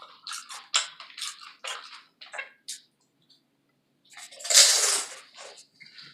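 Close-miked eating of a taco salad: irregular wet, crunchy mouth and food sounds. They stop for about a second in the middle, and a louder burst follows.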